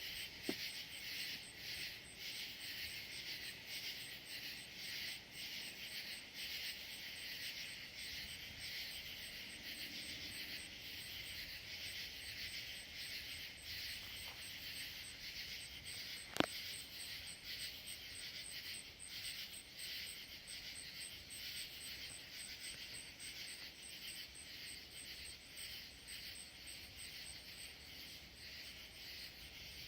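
Night insect chorus of crickets trilling steadily, with a high, rapidly pulsing chirp above it. Two sharp clicks stand out, one right at the start and a louder one about halfway through.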